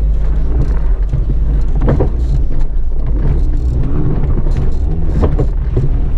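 Small 4x4's engine running steadily as it drives slowly over a rutted grass-and-dirt track, heard from inside the cabin, with a low rumble and scattered knocks and rattles from the body and suspension over the bumps.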